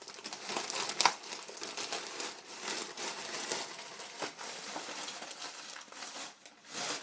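Plastic postal bag crinkling as it is pulled and torn open by hand and the plastic-wrapped contents are handled, with a louder sharp crackle about a second in.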